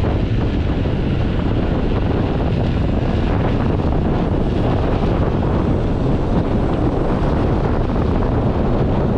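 Loud, steady wind rushing over the microphone of a camera held out on a selfie stick from a fast-moving electric unicycle.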